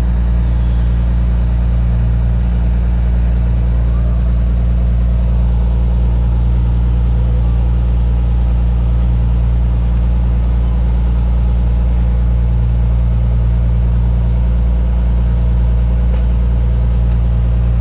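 Fishing boat's engine running steadily, a deep even drone with a thin high whine over it.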